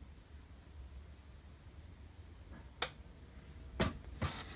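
Low room hum broken by two sharp clicks about a second apart, three seconds in, and a short rustle near the end: model parts being handled in their plastic packaging tray.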